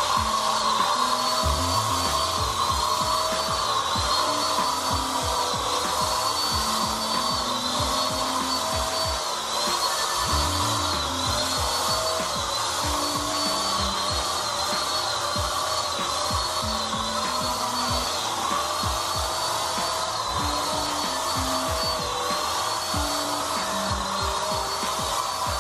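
A Mollar ESG450 450-watt electric paint spray gun running while spraying wall paint. Its motor gives a steady whine that dips briefly in pitch about once a second. Background music with a low beat plays underneath.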